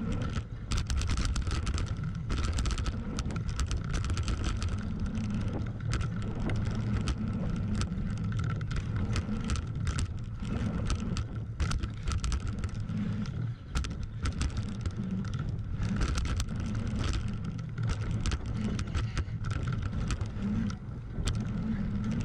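Voodoo Bizango hardtail mountain bike ridden fast over a dirt jump trail: steady rushing of air and tyres rolling on packed dirt, with frequent sharp rattles and clacks from the bike over bumps and landings.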